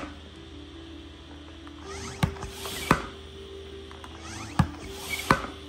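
Tobin Sports barrel hand pump being worked on an inflatable kayak: two strokes, each a rush of air with a plastic clack at either end of the stroke. The chamber is near its target pressure, where each stroke adds little.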